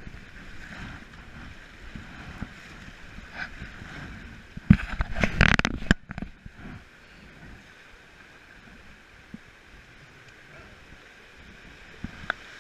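Whitewater river rushing past a raft as a steady hiss, with a loud burst of splashing or jostling noise about five seconds in that lasts about a second.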